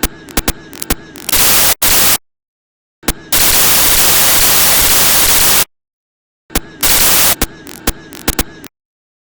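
Corrupted audio: loud blasts of static hiss that switch on and off abruptly, with dead-silent dropouts between them and stretches of rapid crackling clicks. The longest hiss runs a couple of seconds through the middle, and the clicks fill the first second and the stretch from about seven to nine seconds in.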